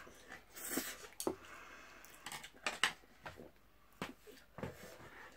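Chopsticks clicking and tapping against a dish of Buldak spicy noodles while eating, in scattered light clicks.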